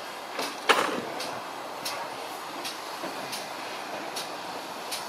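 Ex-GWR 2-6-2 tank steam locomotive No. 5542 moving slowly at low speed. A sharp bang comes about a second in, followed by short, regular beats roughly every 0.7 s.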